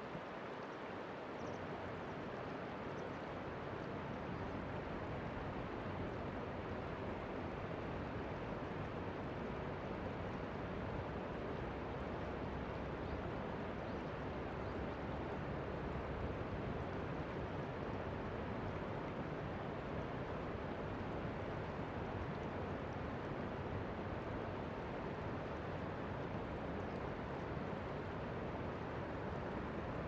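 Steady rush of shallow river water flowing over stones.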